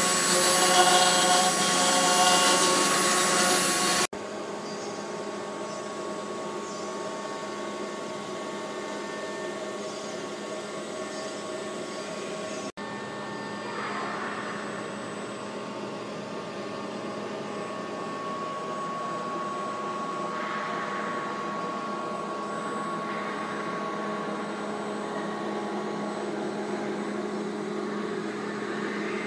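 CNC router's air-cooled spindle running at high speed as its bit carves a foam block turning on the rotary axis: a steady motor whine with cutting noise. It is louder for about the first four seconds, then drops abruptly to a quieter, steady whine, with another sharp break about thirteen seconds in.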